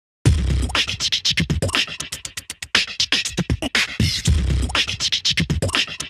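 Channel intro music: a fast, rhythmic run of sharp percussive hits and clicks over deep bass pulses, starting about a quarter second in.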